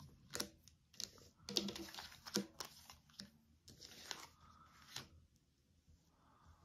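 Tarot cards being handled and laid down: a series of light clicks and paper rustles over the first five seconds, then near quiet.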